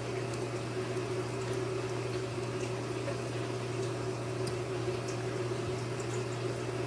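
A steady low hum, with a few faint light clicks of plastic servo connectors and small parts being handled.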